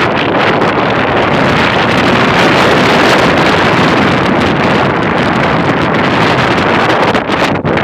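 Strong wind buffeting the microphone, a loud, steady rush that dips briefly near the end.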